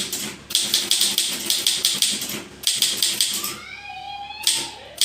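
Manual typewriter typed at high speed: a dense, rapid run of key strikes. The typing breaks off briefly past the middle, where a short rising squeal is heard, then resumes.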